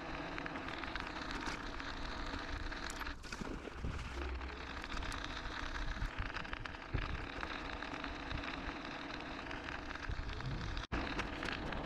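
Riding noise from an e-bike moving along a street: wind on the microphone and tyre noise on the pavement, with a faint steady hum under it. The sound drops out for an instant near the end.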